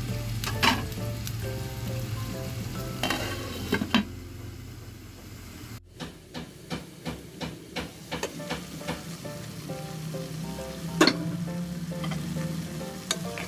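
Pork and vegetables cooking in a nonstick pot with a soft sizzle, while a wooden spatula stirs and knocks against the pot, including a quick run of knocks partway through.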